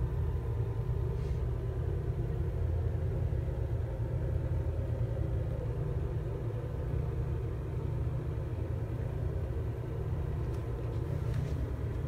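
Steady low rumble, with a few faint clicks near the end.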